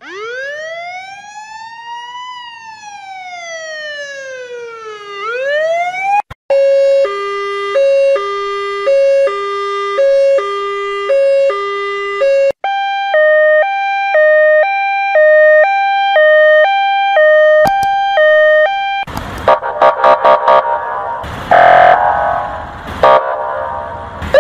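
A run of US emergency-vehicle sirens played back to back. First a slow wail that rises and falls twice, then a hi-lo siren alternating two notes about twice a second, then a higher two-note siren switching a little faster. It ends in a dense stretch of loud, repeated horn blasts.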